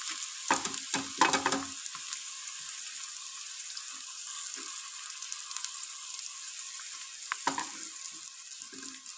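Sliced onion sizzling in hot oil in a steel pan, a steady hiss at the start of frying. A few knocks against the pan come in the first two seconds and again about seven seconds in.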